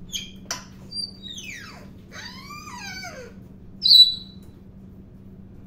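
African grey parrot whistling and calling: a few short chirps, a steeply falling whistle, a wavering call that falls in pitch, then one sharp, loud high whistle about four seconds in.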